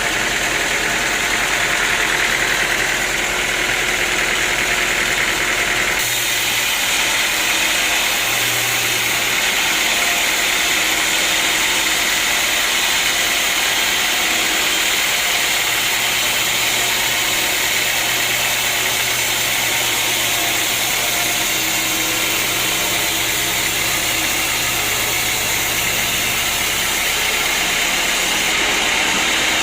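Sawmill machinery running with a steady, loud mechanical noise that changes abruptly about six seconds in.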